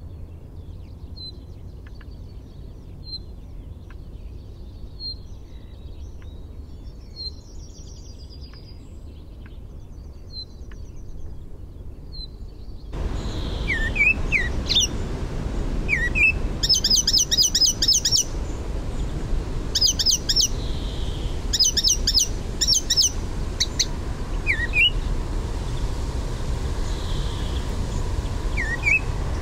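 Faint, thin high calls from a small bird about once a second, then a cut about halfway through to an icterine warbler singing: a loud, varied song of rapid, repeated high phrases mixed with short rising squeaky notes.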